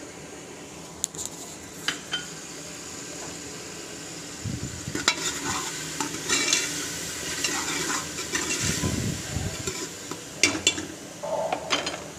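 Steel ladle stirring and scraping through onions, green chillies and whole spices frying in oil in a metal pot, with a light sizzle. The stirring grows busier about four seconds in, and there are a few sharp clinks of the ladle against the pot.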